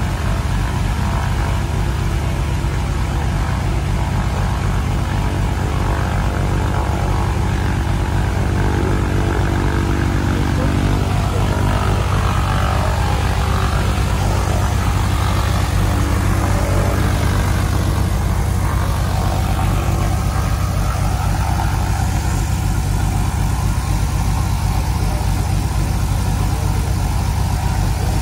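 Steady engine drone, constant in level: a Cessna 188 AG crop duster's piston engine idling on the ground, mixed with a small portable gasoline pump engine running.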